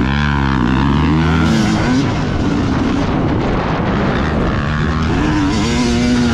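Motocross dirt bike engine revving hard under the rider, its pitch climbing and dropping several times as the throttle is worked and the gears change, over wind and track noise.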